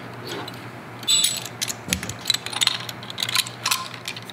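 Stainless steel tri-clamp fittings clicking and clinking as they are handled: a temperature sensor is fitted into a compact tee and the hinged clamp rattles against the metal. After a quieter first second comes a dense run of small sharp metallic clicks.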